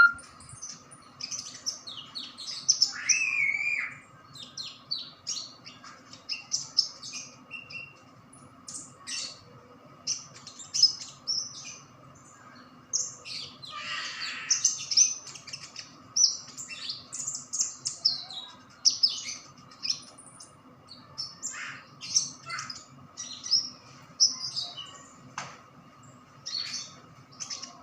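A small caged songbird, a conin, singing freely in quick high-pitched bursts of chirps and short trills, with brief pauses between phrases. The steady, non-stop singing is the 'gacor' state keepers prize: a new bird already settled and in full voice.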